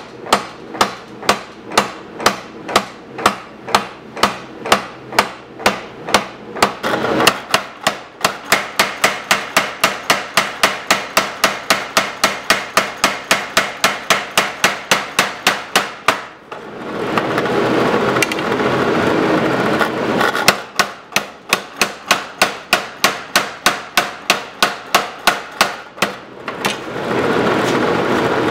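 A 50 lb Little Giant mechanical power hammer striking hot steel in rapid, evenly spaced blows, about three a second at first, then quicker at about five a second. Twice the blows stop for a few seconds, leaving only a steady running noise.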